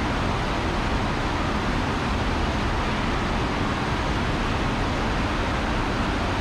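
Steady, even rush of water from a FlowRider surf simulator, its pumped sheet of water running continuously.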